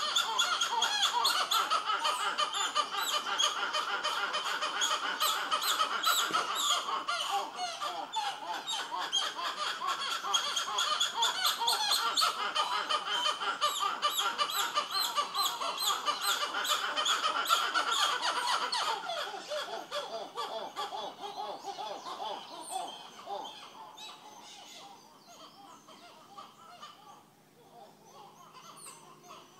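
Monkeys in the treetops calling in a loud chorus of rapid, repeated short calls that dies down about two-thirds of the way through, leaving fainter scattered calls.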